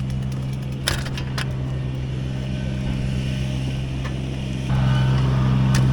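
Skid steer's diesel engine running steadily with an even hum, stepping up louder about three-quarters of the way through as it throttles up under work. A couple of sharp knocks of debris are heard about a second in.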